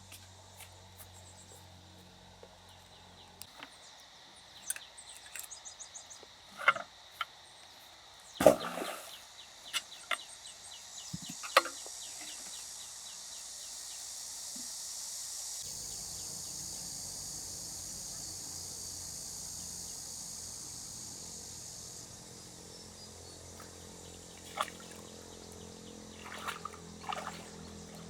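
Rural outdoor ambience: a high, steady insect drone swells through the middle, with scattered sharp knocks and splashes, the loudest about eight seconds in.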